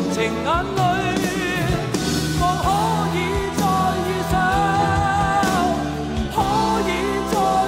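Male pop singer singing live into a microphone with a band behind him, holding long high notes with vibrato over steady drum beats.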